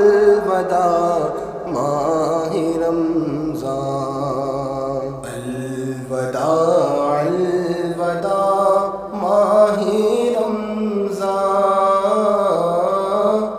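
Male voice singing a slow, drawn-out chant in a devotional Urdu kalam (naat), holding and bending long notes.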